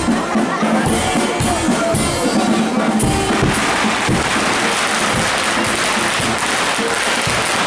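Band music with drums at a bonfire procession, with sharp bangs in the first three seconds and a dense, noisy crackle from about three seconds in, typical of fireworks.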